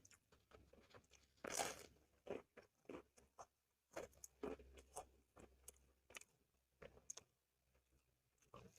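Close-up chewing of soy-sauce chicken and corn rice: irregular wet clicks and mouth sounds, with a louder crunching bite about one and a half seconds in.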